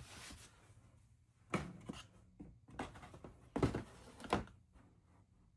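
A few light knocks and handling noises of a foam-board piece and craft tools being moved and positioned on a work surface, the loudest about one and a half, three and a half and four and a half seconds in.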